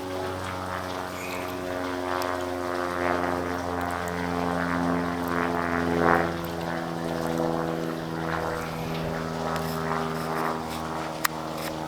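An engine running steadily, a constant drone that holds its pitch, with two sharp clicks near the end.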